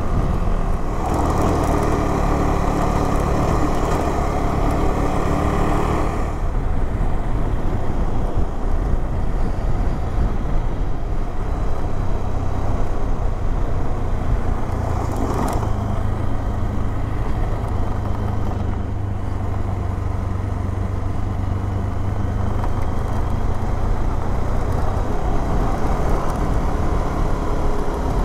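Adventure motorcycle engine running under way on a gravel road, with steady wind and tyre noise; the engine note changes about six seconds in, its higher tones dropping away to a lower, steady drone.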